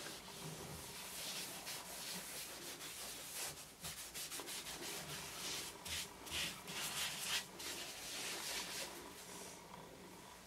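A bare hand rubbing oil into the outer surface of a honey locust wood bowl. It makes faint, irregular swishing strokes of skin over the wood, a little stronger past the middle.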